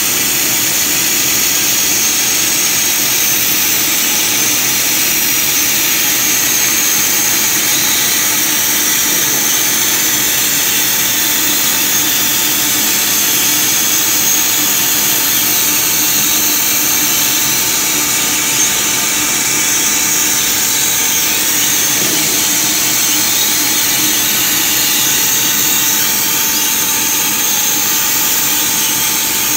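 Trumpf CNC laser cutting machine cutting 12 mm steel plate: a steady, loud hiss of the cutting jet and sparks, with a faint steady whine from the machine underneath.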